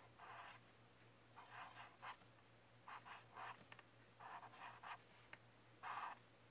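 Felt-tip marker writing on lined paper: faint, short scratchy strokes as each letter is drawn, with brief pauses between them.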